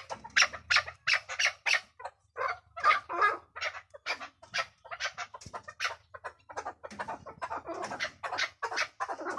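Chukar partridge calling: a fast, unbroken run of short repeated calls, about four a second.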